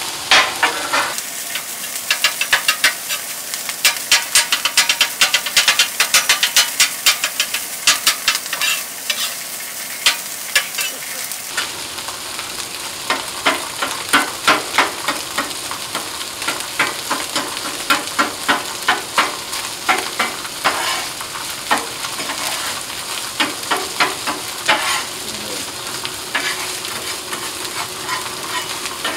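Metal spatula chopping and scraping on the steel top of a Blackstone gas griddle, breaking up cooked rice, in rapid clicking taps that come thick and fast for the first ten seconds or so and more sparsely after. Underneath, diced Spam, red pepper and onion sizzle steadily on the hot griddle.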